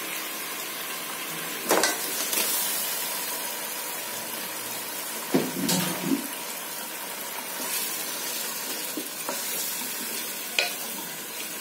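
Pieces of boal catfish sizzling as they fry in a pot of hot oil and spice paste, a steady sizzle throughout. A few knocks and clatters come as the fish is tipped in and stirred with a wooden spatula against the pot.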